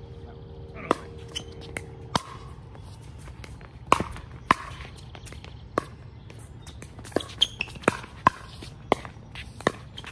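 Pickleball rally: repeated sharp pops of paddles striking the hollow plastic ball, about a dozen in all, coming in a quicker run of volleys from about seven seconds in.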